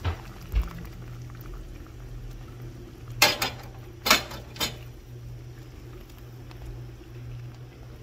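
Peach cobbler filling bubbling at a simmer in a large skillet as a cornstarch slurry is poured in, over a steady low hum. About three to four and a half seconds in come three sharp clinks as the copper measuring cup is set down on the metal sheet pan.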